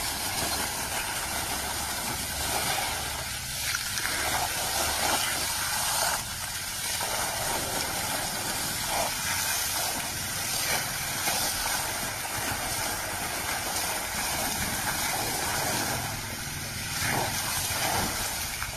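Water spraying hard from a broken pipe: a steady hiss of the jet with the splash of water falling on the wet ground, swelling and easing slightly as the elephant moves through it.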